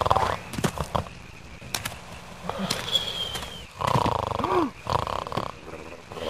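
Animated-character snoring: rasping snores in several bursts, with a short high whistle about three seconds in.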